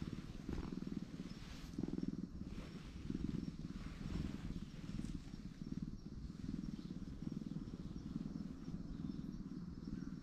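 Grey domestic cat purring while it is scratched, a faint low rumble that swells and fades about once a second.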